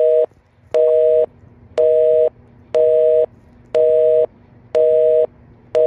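North American telephone busy signal: a two-note beep, half a second on and half a second off, repeating about once a second.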